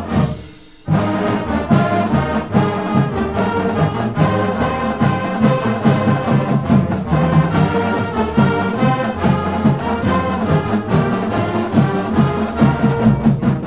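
Brass-led instrumental music with a steady beat, starting about a second in after a brief drop in level.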